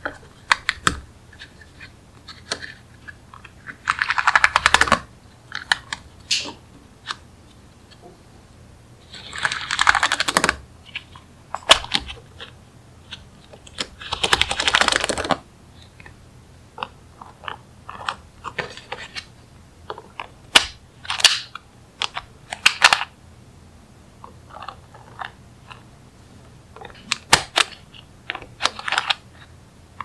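Small magnetic balls clicking as they snap together: scattered sharp clicks, with three denser rattling runs of about a second each in the first half and a quick cluster of clicks near the end.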